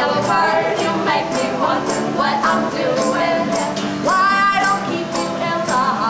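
Live acoustic folk music: a woman singing over a strummed acoustic guitar, holding one long note about four seconds in, with a steady high percussive beat about twice a second.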